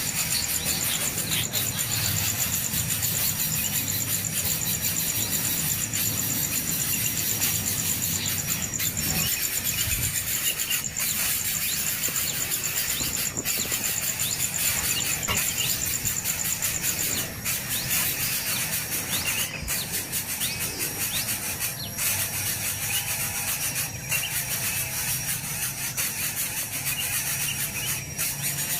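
Nestling birds begging for food with continuous high-pitched cheeping.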